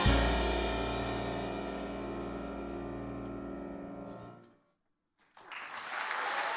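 Jazz big band of saxophones, trumpets, trombones, piano, double bass and drums hitting and holding its final chord, which rings and fades for about four seconds before cutting off. About a second later, audience applause begins.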